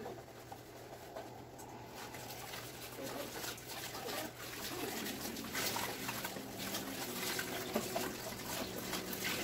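Kitchen tap running into the sink while dishes are washed by hand, with water splashing and dishes and utensils clinking, the clinks coming more often from about halfway through.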